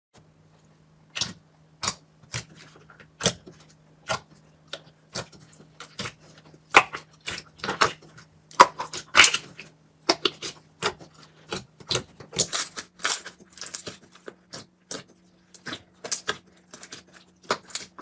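Slime being squeezed and poked, giving irregular sticky clicks and crackling pops, some in quick clusters, over a faint steady hum.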